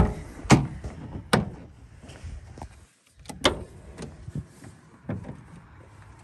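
Rear barn doors of a Ford E-350 van being unlatched and swung open: several sharp latch clicks and clunks spread out over a few seconds, over low rumbling handling noise.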